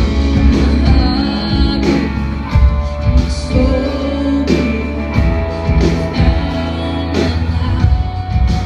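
Live worship band playing a song: a woman sings the lead vocal over electric guitar and bass, with a steady beat.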